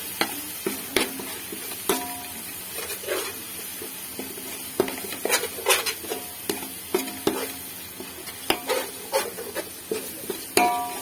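A spoon stirring and scraping through a pan of masala frying in oil, with irregular knocks against the pan over a steady sizzle.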